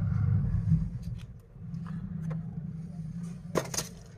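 Low rumble that swells in the first second and again around two to three seconds in, then a quick cluster of sharp clicks near the end as the replacement phone back glass panel is handled on the rubber repair mat.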